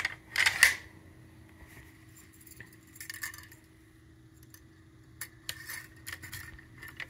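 Metal clicks and clinks from the dust cover and recoil spring of a Cyma RPK airsoft rifle being handled on the receiver during reassembly: a quick cluster of sharp clicks at the start, a few faint ones in the middle, and another run of clicks near the end.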